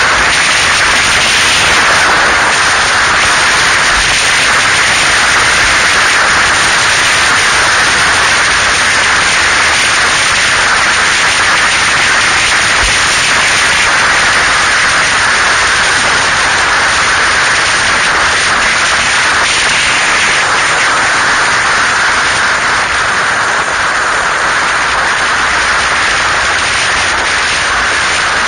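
Loud, steady wind noise buffeting the microphone of a camera mounted on a motorcycle moving at road speed, with no distinct engine note.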